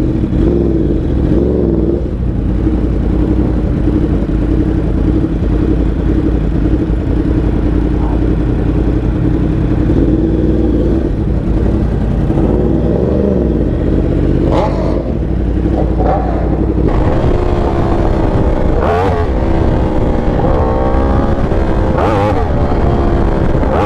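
Yamaha R1 inline-four sport bike with a titanium Racefit exhaust, ridden on the road. The engine note holds steady at first, then rises and falls repeatedly in the second half as the rider works the throttle and changes gear.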